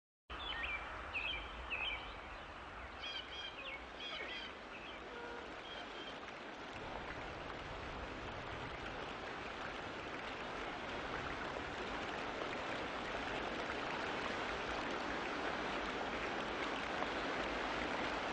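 Outdoor nature ambience: birds chirping over a steady rushing hiss during the first few seconds, after which the hiss alone goes on and grows gradually louder.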